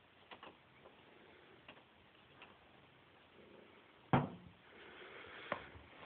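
A cat moving about on top of a closet shelf unit: a few faint taps, then one sharp thump about four seconds in, followed by a brief rustle and another tap.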